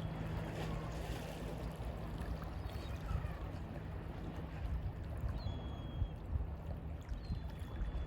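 Mediterranean sea waves washing steadily, with a heavy low rumble, and a few faint short bird calls over the top.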